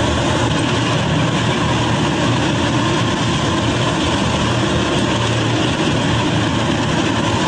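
A column of M48H Brave Tiger tanks driving past, their engines and tracks making a loud, steady rumbling.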